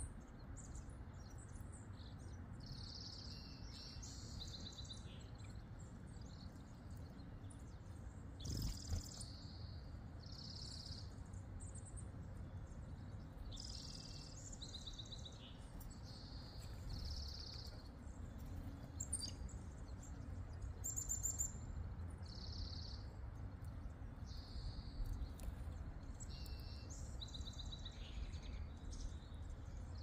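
Small songbirds chirping and calling in short, scattered bursts over a low, steady background rumble, with one brief louder noise about nine seconds in.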